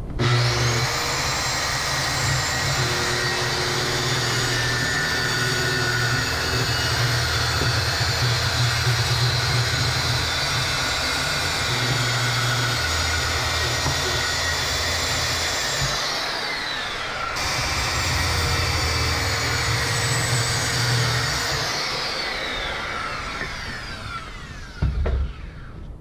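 Circular saw cutting a board: the motor runs steadily under load for about sixteen seconds and winds down, then runs again for about four seconds and winds down slowly with a falling whine. A thump near the end.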